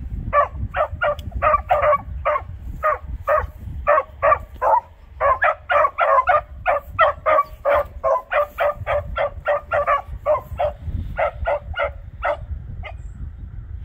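Beagles barking on a scent trail: a rapid, steady string of short chop barks, about three a second, that stops near the end.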